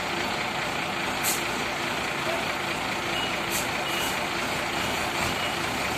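Forklift engine running steadily under load as it pushes a shipping container onto a truck bed. A reversing alarm gives short high beeps from about halfway through, and there are a few brief hisses.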